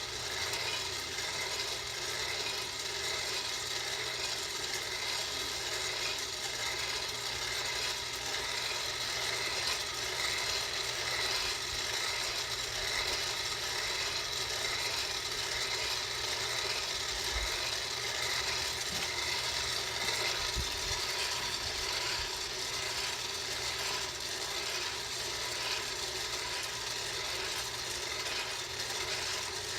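Electric Bar Well home coffee roaster running steadily, its motor and fan whirring while the beans rattle inside as they roast, late in a light roast.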